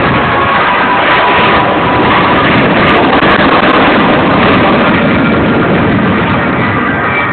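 Jet noise from an Avro Vulcan B2 bomber's four Rolls-Royce Olympus turbojets during a display pass, with a faint whine on top. It swells a little through the middle and eases slightly near the end.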